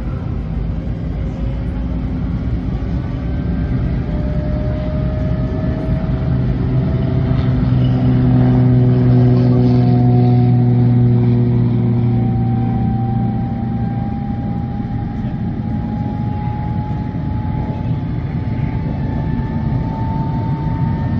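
MiG-17's Klimov VK-1-series turbojet spooling up on the ground during engine start. It is a slowly rising whine over a steady low rumble, growing louder in the middle and then holding.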